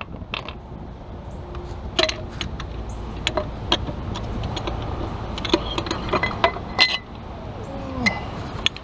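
Hammer knocking on the connecting rods and pistons of a 3.1L V6 engine block to drive them out: a string of irregular sharp metallic clinks and knocks, a few of them ringing briefly.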